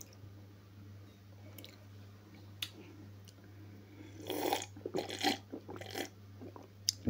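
Brine being slurped and gulped from a glass jar of pickled cucumbers: a run of wet slurps and swallows starting about four seconds in, after a few faint clicks.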